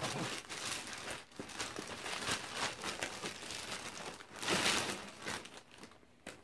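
Clear plastic bag crinkling and rustling as a boot is slid out of it and the bag is handled, with a louder burst of crinkling about two-thirds of the way through.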